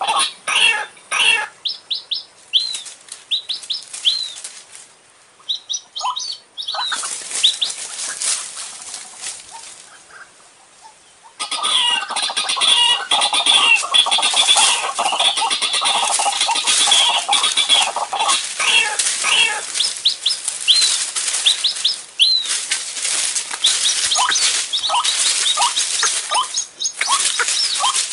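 White-breasted waterhen (ruak-ruak) calls used as a lure: repeated harsh croaking calls mixed with short hooked notes. The calls thin out to a lull of a few seconds in the middle, then a dense run resumes.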